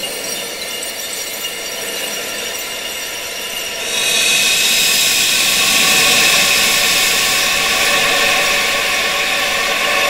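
Wind sound, a steady rushing hiss with faint held tones beneath it, that swells louder and brighter about four seconds in.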